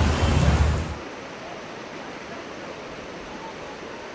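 Steady rushing of floodwater, an even hiss, after about a second of louder low rumbling noise that cuts off abruptly.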